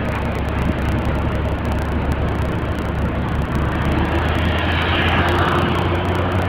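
Cabin noise of a moving vehicle: a steady low engine hum under an even rush of road and wind noise.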